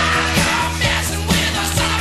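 Loud rock music with a steady drum beat, about two hits a second.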